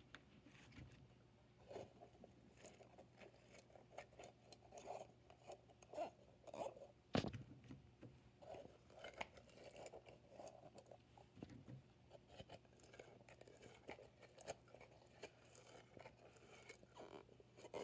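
Faint crunchy crackling and squishing of a bead-filled crunch slime being scooped and pulled out of its container, with one sharper click about seven seconds in.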